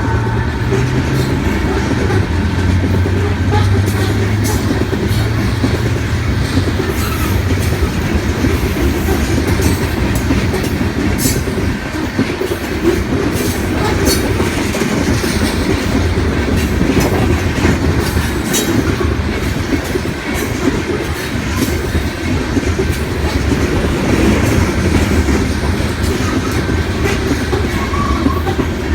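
A loaded coal train rolling past: a steady heavy rumble of steel wheels on rail, with repeated clicks and clacks as the cars' wheels cross rail joints.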